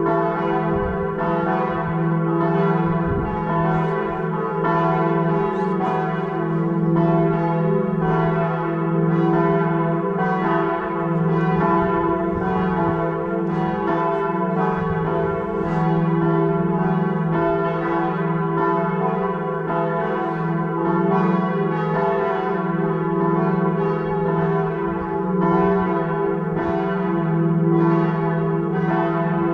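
Several church bells ringing together in a full peal, each swinging bell striking over and over about once or twice a second, their tones overlapping and humming on without a break.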